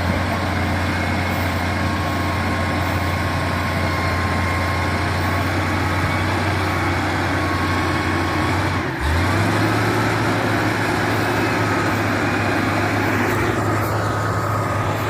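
FG85 motor grader's diesel engine running steadily under load as it works; about nine seconds in the engine note briefly dips and settles at a slightly different pitch.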